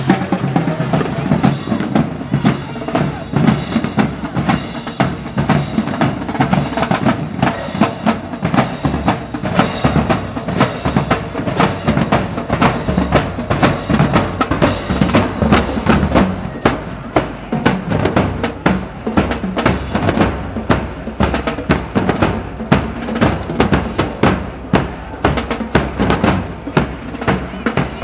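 Marching drums playing a fast, steady beat on snare and bass drums, with the strikes growing denser about halfway through.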